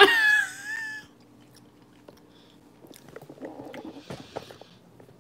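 A short, high voice exclamation with falling pitch, then, from about three seconds in, crackly crunching and chewing as a crispy air-fried battered catfish fillet is bitten into and eaten.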